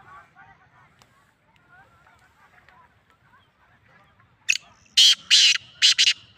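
A bird giving about five loud, harsh squawking calls in quick succession near the end, over faint chirping.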